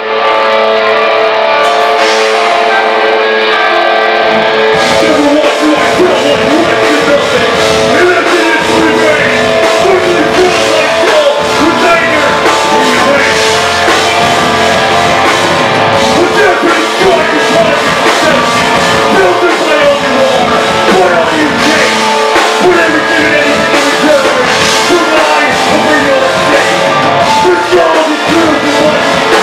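Live rock band playing loud, with electric guitars and vocals; the sound fills out about five seconds in.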